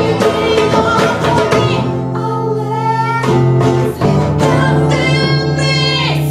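A live acoustic band: two acoustic guitars strummed under women's singing, with a hand drum beaten alongside. The voices hold long notes twice in the second half.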